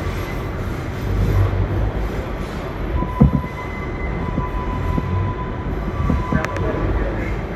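R142A subway train running through a tunnel, with a steady low rumble of wheels on rails. From about three seconds in, a thin, steady wheel squeal runs for a few seconds. A sharp knock a little past three seconds is the loudest moment, and a couple of light clicks follow near the end.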